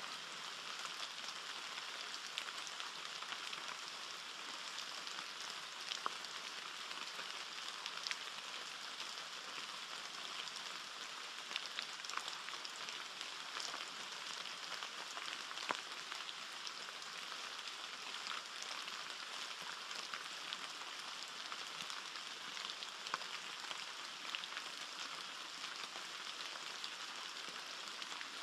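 Rain falling on forest foliage: a steady hiss with scattered louder single drops.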